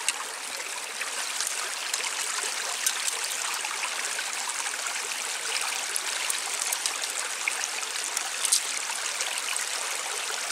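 Water running and trickling steadily at a beaver dam, with a few faint clicks on top.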